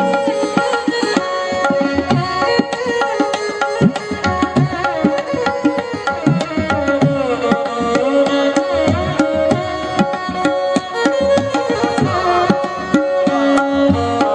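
Background music: Indian-style instrumental with tabla drumming under held melodic notes.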